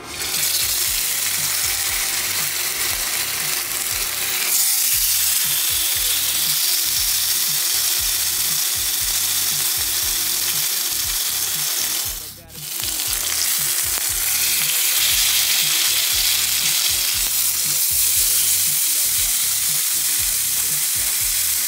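Two seasoned strip steaks searing in hot oil in a cast-iron skillet, a loud, steady sizzle that drops out briefly about halfway through.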